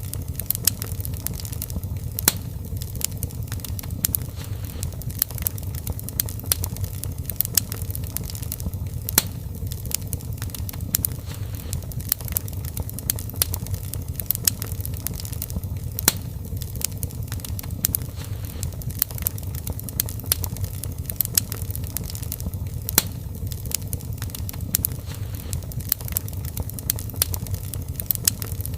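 Fire crackling in a fireplace: frequent irregular sharp pops and snaps over a steady low rumble of burning flames.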